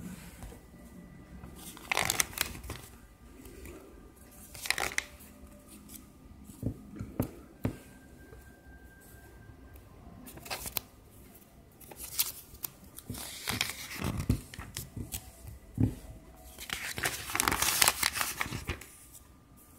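Glossy pages of a paper catalogue being turned by hand: several separate rustling swishes, with a longer rustle near the end.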